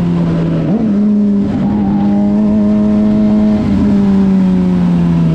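Suzuki GSX-R600 inline-four engine running under way at steady mid revs over wind noise. The revs dip and pick back up about half a second in, then ease off gradually near the end.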